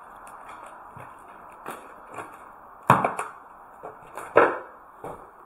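Irregular knocks and clicks, with two louder knocks about three and four and a half seconds in, over a steady hiss.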